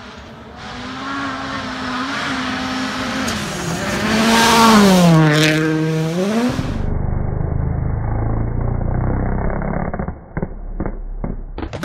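Hyundai i20 WRC rally car's 1.6-litre turbo engine at high revs, approaching at speed on a gravel stage and passing close by, its pitch dropping sharply as it goes past. After that comes a duller, lower engine sound, with a run of sharp cracks near the end.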